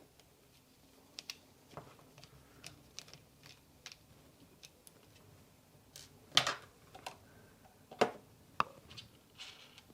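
Scattered small plastic clicks and taps as the plastic housing of an Ebo robot cat toy is handled and worked apart by hand, with a few louder knocks about six and a half and eight seconds in.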